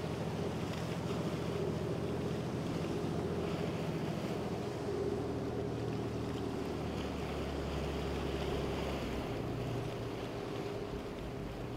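Azimut 43 flybridge motor yacht running past at speed: a steady engine drone over the rush of its bow wave and wake, with wind on the microphone. The engine note shifts about five seconds in and again near nine seconds, then eases off.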